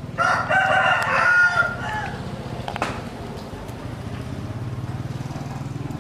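A rooster crows once, a loud call of about two seconds that starts just after the beginning and trails off, over a steady low hum.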